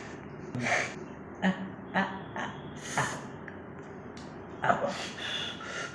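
A man gasping and huffing in short, sharp breaths, about eight times, with a faint voiced groan on one or two of them, reacting to scalding tea burning his mouth.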